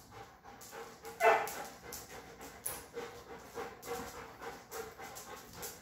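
German Shepherd panting in quick, regular breaths, with one short louder vocal sound from the dog about a second in.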